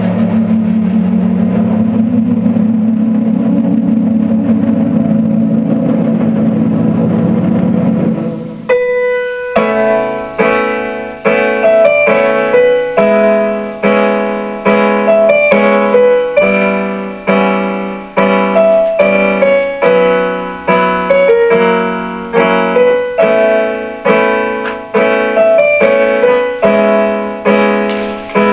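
Music: a held, wavering synthesizer-like sound for about the first eight seconds, then a piano playing a steady run of struck notes and chords, each fading after it is played.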